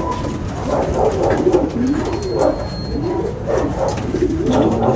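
Several racing pigeons cooing, their overlapping calls rising and falling.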